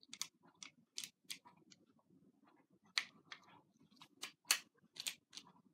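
Irregular sharp metallic clicks, about a dozen, as a full-metal Cybergun Colt M1911 CO2 blowback pistol is handled and its parts are worked.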